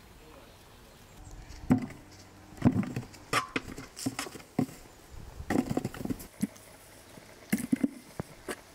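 An irregular series of light knocks, taps and clicks, as of things being handled, beginning about a second in and coming in clusters.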